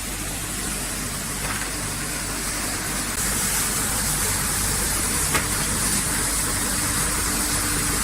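Basket washing machine running: a steady motor hum under the hiss of water spray, which grows louder about three seconds in, with a couple of light knocks.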